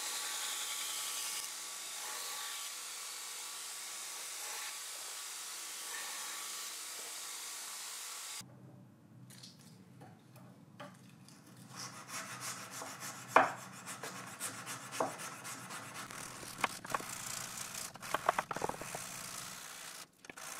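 Belt grinder running with a steel knife blade held against the belt in a grinding jig, a steady hiss. About eight seconds in it gives way to hand-sanding: a flat abrasive stick rubbed back and forth along the blade in irregular scratchy strokes with a few sharper scrapes.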